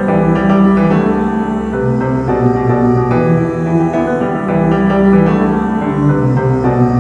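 Keyboard music from a choral hymn anthem: sustained chords changing every half second or so, with a strong low bass line.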